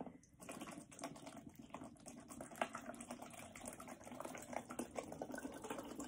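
Water poured from a plastic bottle into a small plastic bottle holding rocks and flower petals: a faint trickle with many small crackles and clicks, starting about half a second in.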